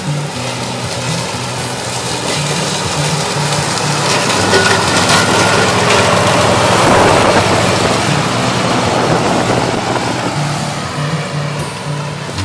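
Toro ZS4200T zero-turn riding mower running steadily under load as its deck cuts tall, dense meadow grass, growing louder toward the middle as it comes close, then easing off.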